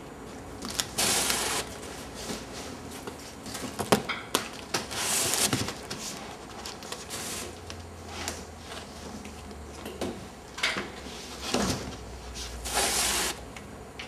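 Scattered knocks and clicks with several short scraping hisses, as of cardboard parts of the cottage's window and catapult mechanism being moved and worked.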